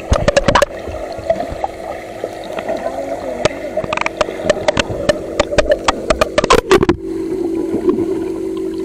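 Swimming-pool water splashing and gurgling right at the microphone, with many sharp clicks of water striking it. About seven seconds in the sound turns muffled, leaving only a steady low drone.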